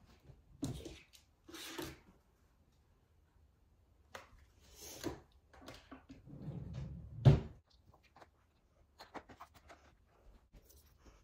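Household items being rummaged through and set down while a nightstand is cleared out: scattered light knocks and rustles, with one loud thunk about seven seconds in.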